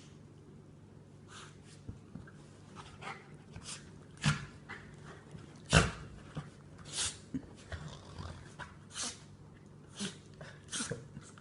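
Jack Russell terrier in a sneezing fit: a string of short, sudden sneezes and snorts, irregularly spaced, the loudest about six seconds in.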